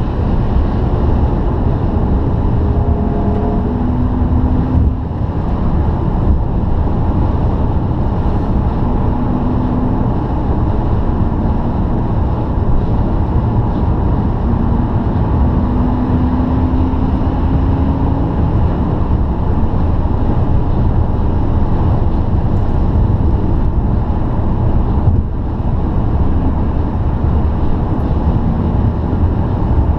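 Steady road noise inside a car cruising at motorway speed on a wet road: a low rumble and tyre hiss, with a faint engine drone that rises slowly in pitch now and then.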